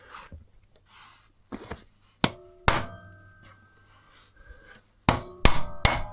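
Hammer striking a hand impact screwdriver to free a seized engine-case screw, a series of sharp metallic blows with a brief ring, spaced irregularly, with a pause in the middle and three quick hard strikes near the end.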